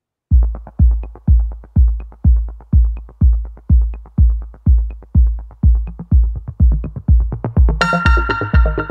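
Electronic background music: a deep kick drum beating steadily about twice a second, with a bright synth chord coming in near the end.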